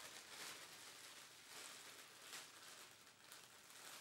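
Near silence, with faint, brief rustles of packaging and a spinning reel being handled.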